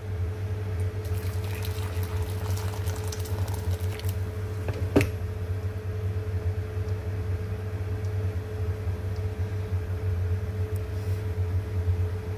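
Hot boiled water being poured into a bowl, over a steady low hum, with a single sharp click about five seconds in.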